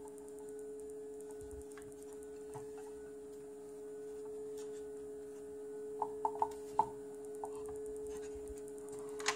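Light clicks and taps from hands handling a plastic-bodied Meec 18V cordless circular saw, with four quick clicks about six seconds in and one more near the end. A steady hum runs underneath.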